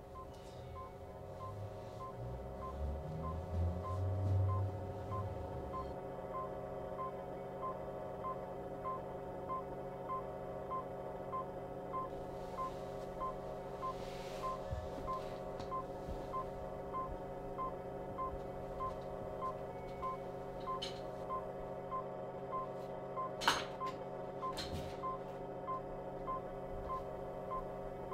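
A short electronic beep repeats a little under twice a second over a steady multi-tone electronic hum. A low rumble swells and fades a few seconds in, and there is a sharp click near the end.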